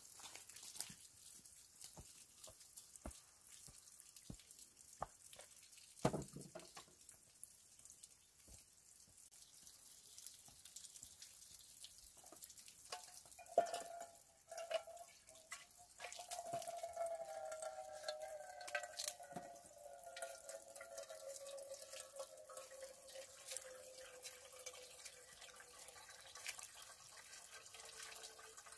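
Faint water sounds of cassava roots being handled in a pot of water, dripping and splashing, with light clicks and a thump about six seconds in. From about halfway a faint steady hum joins in, slowly sinking a little in pitch.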